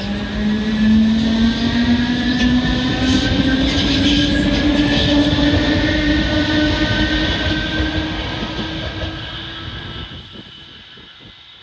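DART electric multiple unit pulling away past the track, its traction motors whining in several slowly rising tones as it gathers speed over a heavy rumble of wheels on rail. The sound fades away over the last few seconds as the train recedes.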